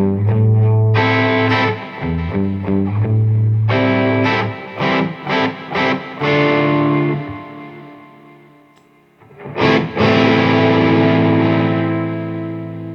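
Electric guitar played through an overdriven Bludotone tube-preamp amp into an Alnico-speaker cabinet: a run of chords and single notes, then a chord struck about ten seconds in and left ringing and slowly fading.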